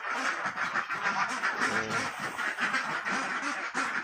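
A large flock of domestic ducks quacking continuously, many calls overlapping. The ducks are hungry and crowding the feeder as feed is poured in.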